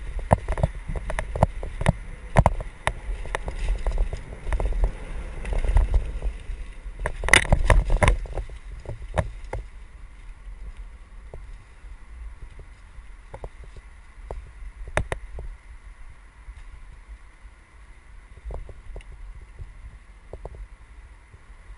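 Mountain bike riding over a rough dirt trail, heard from a helmet-mounted camera: rattles and knocks from the bike over bumps above a low rumble of tyres and wind. The knocking is dense and loud for the first eight seconds or so, then eases to sparser, lighter knocks.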